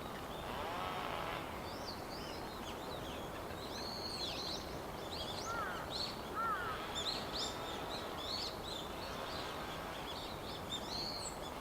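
Dusky thrush calling: many short, high, arching chirps through most of the stretch, with a few lower-pitched call notes near the start and in the middle, over a steady background noise.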